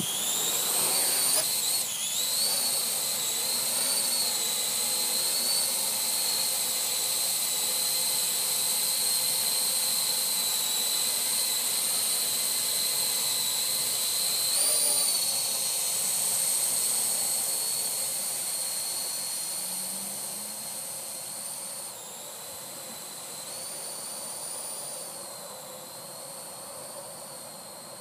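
Parrot AR.Drone 2.0 quadcopter's four brushless motors and propellers spinning up with a rising whine, then a steady high whine as it lifts off and hovers. The whine fades in the second half as the drone climbs away overhead.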